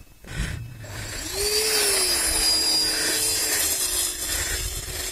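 Electric ducted fans of a radio-controlled Boeing 787 model spooling up with a rising whine a little over a second in, then running steadily at a high whine.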